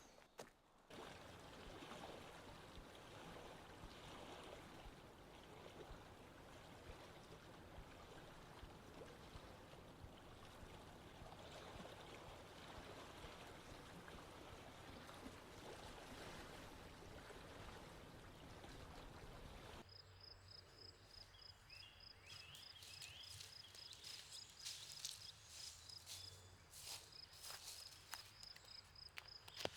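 Faint, steady rush of running water, like a stream. About two-thirds of the way through it cuts away to a high, rapidly pulsing tone with scattered clicks.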